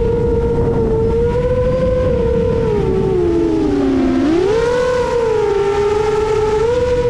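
Emax Eco II 2806.5 brushless motors spinning 7-inch three-blade props on an FPV quadcopter: a loud, steady whine over a rumble of wind. About three seconds in the pitch sinks as the motors slow, then jumps sharply back up shortly after four seconds.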